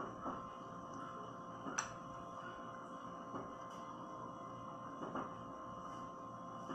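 A metal spoon clinking and scraping against a small glass bowl a few times, the sharpest clink about two seconds in. Under it runs a steady electrical hum of several tones.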